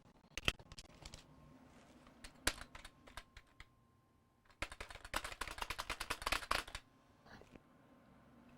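Scattered light clicks and taps, then a quick run of rapid clicking lasting about two seconds from a little past the middle.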